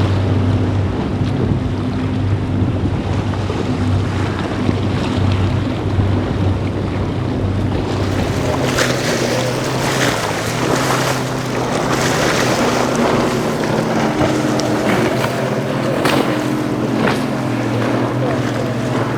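Motorboat engines running steadily through rough water, with waves and spray splashing and wind buffeting the microphone. From about eight seconds in, the splashing comes in frequent surges.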